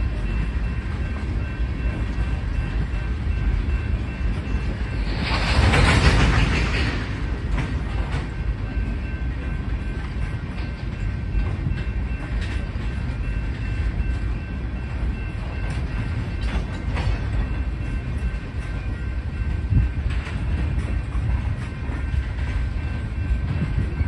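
Freight train of tank cars rolling past at a grade crossing: a steady rumble of wheels on rail with scattered clicks from the wheels crossing rail joints. About five seconds in comes a loud rushing noise lasting roughly two seconds.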